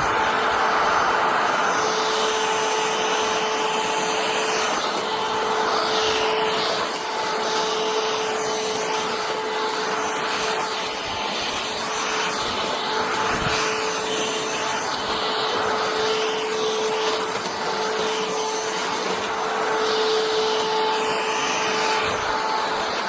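Hoover H-FREE 100 cordless stick vacuum running steadily: a constant motor whine over a rushing hiss of suction.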